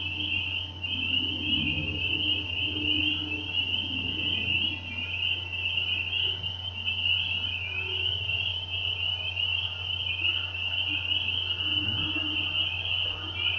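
A dense chorus of many frogs calling together in their breeding season: a continuous, wavering high-pitched trill with a few lower calls beneath it, over a low steady hum.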